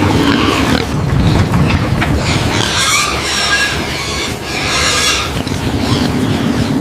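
Pigs squealing, with two high-pitched squeals about three and five seconds in, over a steady low rumble.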